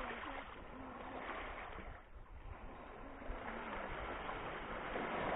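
Small waves breaking and washing onto a pebble shore, swelling and easing, with a brief lull about two seconds in.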